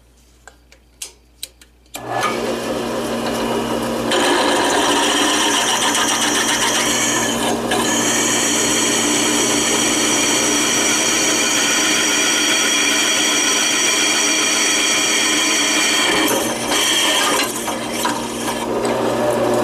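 Drill press running, its twist bit cutting a bolt hole through an iron pipe flange. A few small clicks come first, the press starts about two seconds in, and a steady cutting grind with motor whine grows louder about two seconds after that, then eases and breaks up near the end.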